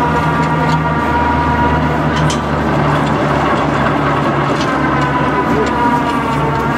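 A truck engine running steadily at idle: a low hum with a thin, slightly wavering whine above it.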